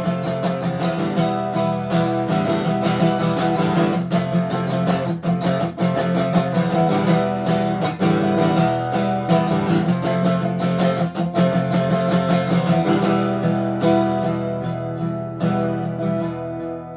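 Acoustic guitar strummed in a steady rhythm, with no singing; the strumming thins out and softens in the last few seconds.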